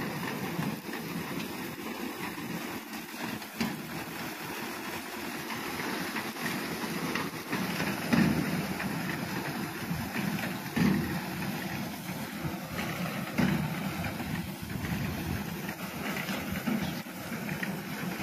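Reaper binder's engine running steadily, with a few brief louder surges.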